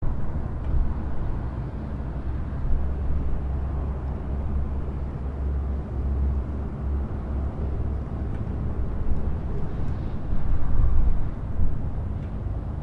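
Gentle breeze blowing: a steady rushing noise with a deep rumble, swelling briefly about ten seconds in.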